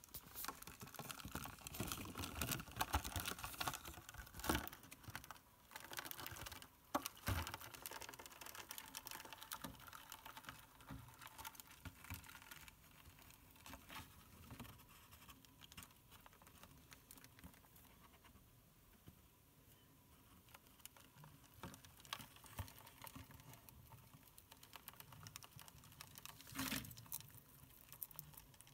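Bearded dragon eating: faint small crunching and clicking from its chewing, busiest in the first several seconds, with a few louder short puffs now and then.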